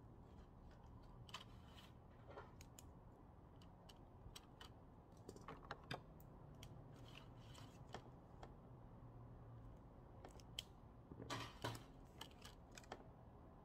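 Faint handling of a paper planner: pages flipped and rustled, with scattered soft taps and clicks and a small cluster of them near the end.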